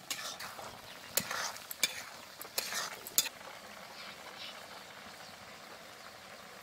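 Metal ladle stirring a thick red-lentil and potato curry in a metal kadai, with several sharp clicks and scrapes against the pan in the first three seconds. Then the curry simmers with a steady, quieter bubbling.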